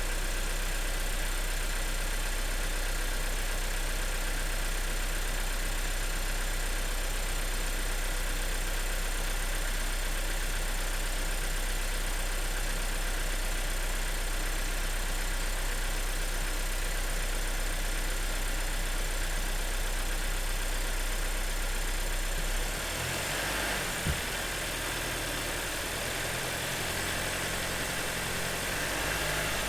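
2026 Volkswagen Jetta's engine idling steadily. About three-quarters of the way through, the low engine sound changes and gets slightly quieter, and a single short knock follows shortly after.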